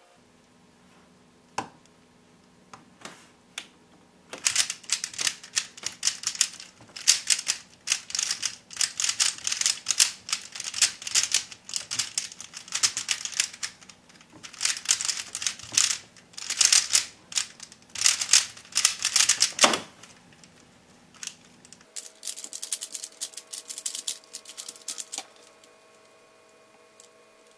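3x3x3 Rubik's speedcube being turned fast during a timed solve: a dense, rapid clatter of layer turns lasting about fifteen seconds and ending in a sharp knock, with a few single clicks before it and a shorter burst of clicking a couple of seconds after.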